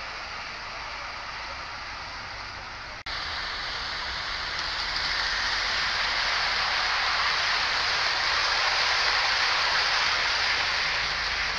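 Steady outdoor hiss, then after a brief dropout about three seconds in, a Hornby OO gauge model train running past on the garden track: a rushing hiss of wheels on rail that swells as the coaches pass and eases near the end.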